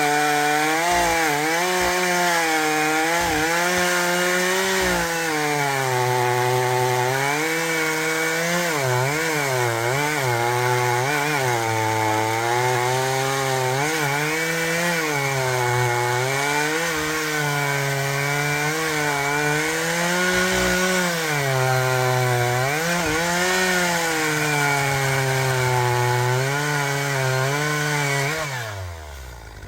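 A 45 cc-class gas chainsaw cutting through a log, its engine speed repeatedly dipping under load and recovering as the chain bites. Near the end the engine drops off toward idle.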